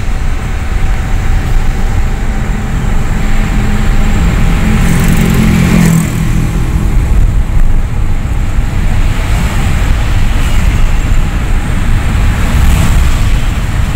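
Steady engine and road rumble inside a moving car's cabin.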